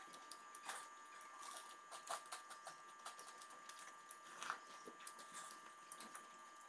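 Faint eating sounds at a table: scattered soft clicks and rustles of hands picking at food on a leaf and bowls being handled, with a sip from a bowl about four and a half seconds in. A faint steady high hum runs underneath.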